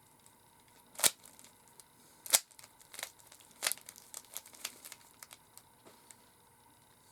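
Sharp clicks and light clattering of a Rubik's Cube being handled. Loud clicks come about a second in and just after two seconds in, then a run of smaller clicks that dies away.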